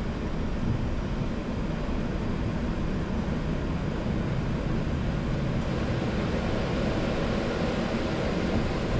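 Steady rumble and hiss on a Boeing 737-700 flight deck: the CFM56-7B engines running at low thrust with the cockpit air conditioning. The hiss grows a little brighter about halfway through.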